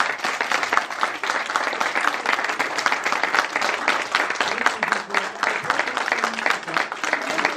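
An audience applauding, many people clapping at once.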